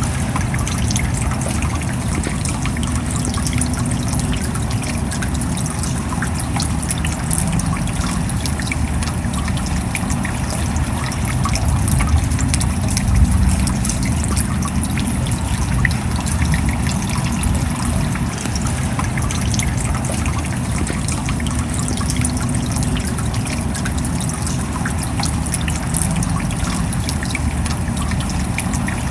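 Steady rain: a dense patter of drops over an even wash of trickling water.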